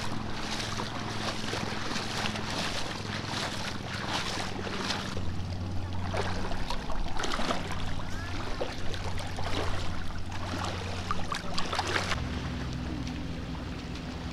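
Seaside ambience: surf washing in under a steady low engine hum, with scattered small clicks and knocks.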